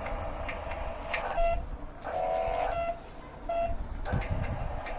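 Electronic beeps from a toy remote control car: a short beep about a second and a half in, a longer warbling tone just after two seconds, then another short beep, over a steady low rumble.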